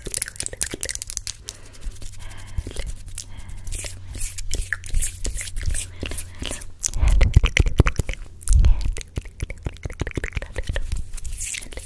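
Long fingernails scratching and tapping directly on a bare microphone's metal mesh grille: a fast, irregular run of crackly scratches and sharp taps. Heavier low bumps come about seven and eight and a half seconds in.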